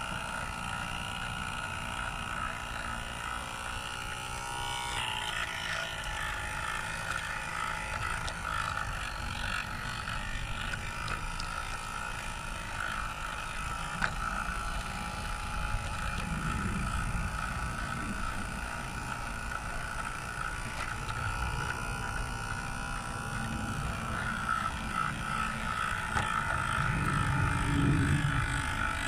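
Garden-railway model locomotive running along its track: a steady mechanical whine from its drive over a low rattling rumble of wheels on rail, with a single click about halfway through. The rumble grows louder near the end.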